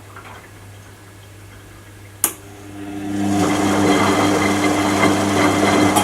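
Washing machine: a low hum, a single sharp click a little over two seconds in, then its motor starts up and runs steadily.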